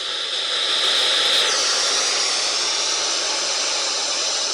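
Spirit box putting out loud hissing static through its speaker as it sweeps radio stations, with the hiss shifting higher about a second and a half in.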